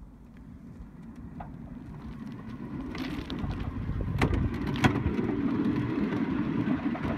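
Kalamazoo hand-pumped railway handcar rolling along the rails, its steel wheels rumbling and growing louder as it picks up speed. Two sharp clicks stand out, about four seconds in and again just under a second later.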